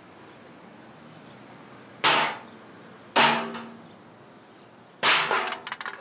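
Sound effects of an animated logo sting: three sharp, ringing impacts about two, three and five seconds in. The last one breaks into a quick rattle of smaller hits near the end.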